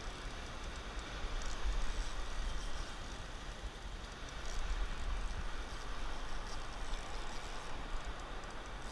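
Surf washing in over a rocky reef flat, a steady rushing hiss, with wind buffeting the action-camera microphone as a low, uneven rumble.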